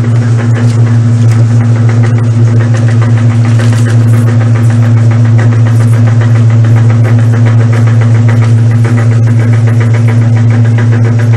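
Old Brastemp Luxo washing machine running: a loud, steady electric motor hum with a fast, even pulsing over it.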